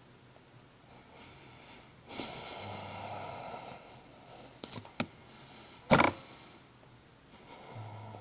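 Beatboxer's mouth sounds. A breathy hiss starts about two seconds in and lasts about two seconds, then come two quick clicks, then a sharp lip pop about six seconds in, the loudest sound.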